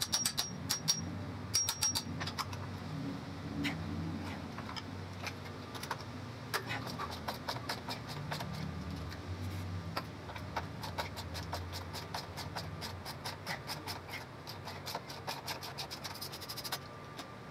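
A hand ratchet clicking in runs of quick strokes while the lug nuts on a golf cart wheel are worked loose.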